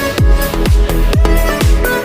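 Electronic dance music: a steady kick drum about twice a second under held synth chords.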